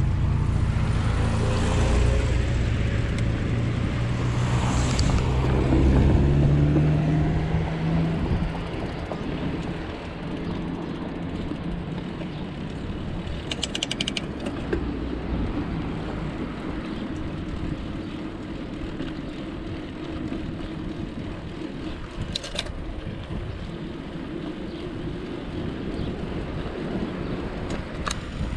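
Riding noise from a bicycle picked up by a chest-mounted camera: a steady rumble. A motor vehicle passes close by during the first several seconds. A quick run of sharp ticks comes near the middle.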